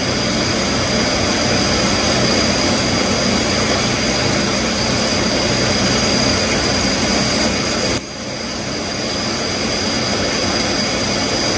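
CNC vertical milling machine cutting a metal brake caliper bracket under flood coolant: a steady machining noise with a thin high whine over it. It drops suddenly about eight seconds in and builds back up over a couple of seconds.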